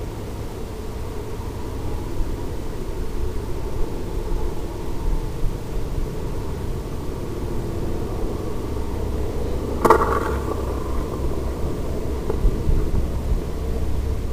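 Onboard audio of a RiteWing Zephyr ZII FPV flying wing gliding in low over ice: a steady rush of wind noise. About ten seconds in comes a sharp knock as it touches down on the ice, followed by sliding.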